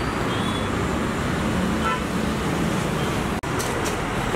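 Steady hum of street traffic, broken by a split-second dropout about three and a half seconds in.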